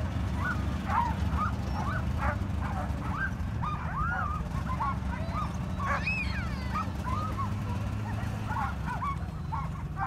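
A team of harnessed sled dogs yipping and whining in many short, high-pitched cries, the excited noise of sled dogs held back from running; one longer cry rises and falls about six seconds in. A steady low hum runs underneath.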